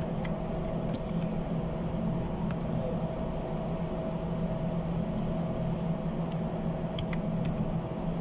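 Belt-driven air handling unit fan blower running steadily after its ball bearing was replaced: an even hum with a low tone and a fainter higher one, with a few faint ticks.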